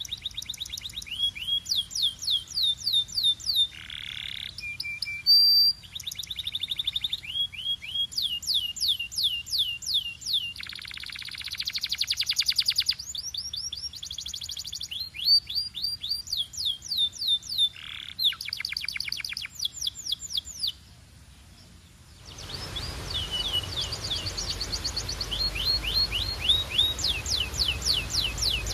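A canary singing long tours of rapid, repeated down-slurred notes, alternating with fast rolling buzzy trills. The song breaks off briefly about three-quarters of the way through, then resumes over a steady hiss.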